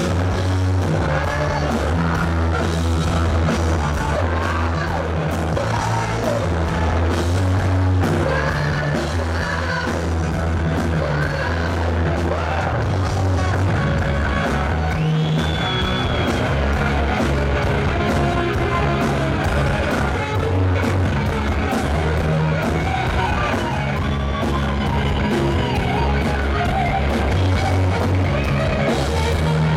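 Live rock band playing loudly: electric guitars through Marshall amplifiers over bass and a drum kit.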